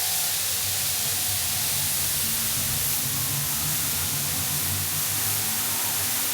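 A loud, steady hiss of rushing noise that holds at an even level throughout.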